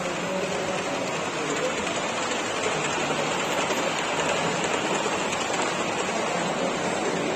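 Steady background hubbub of a busy exhibition hall: an even wash of noise with a faint murmur of distant voices, no single sound standing out.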